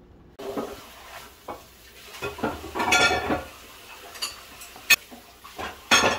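Kitchen utensils knocking and scraping against bowls: a ladle stirring pancake batter and chopsticks mixing chopped pork and green onion, with a longer scrape about three seconds in and sharp knocks near the end.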